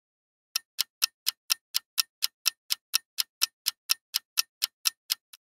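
Clock-ticking sound effect marking a quiz countdown timer: sharp, even ticks about four a second, starting about half a second in and stopping just before the end, the last tick fainter.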